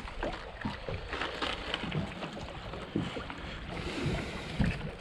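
Irregular light knocks and handling noises aboard a small fishing boat, over steady wind noise on the microphone.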